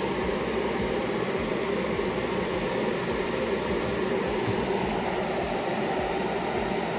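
Steady hum of small electric motors in an airbrushing setup running without a break.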